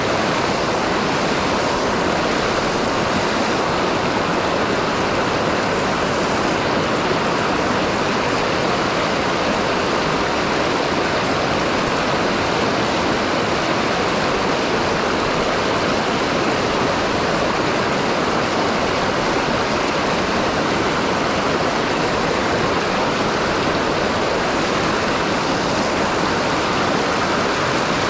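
Steady rush of fast-flowing river water, an even hiss with no breaks or changes.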